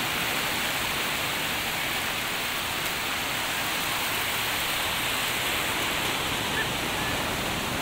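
Sea surf washing onto a sandy beach: a steady, unbroken rushing noise.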